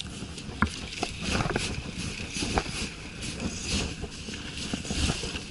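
Wind and sea noise over the microphone, with scattered, irregular knocks and clicks from handling a spinning rod and reel.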